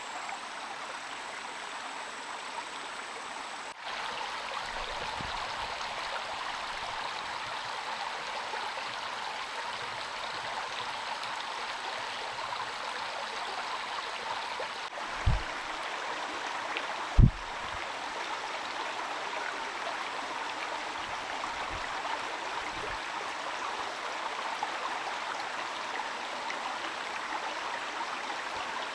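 Steady hiss of heavy rain, with two dull low thuds about two seconds apart midway through.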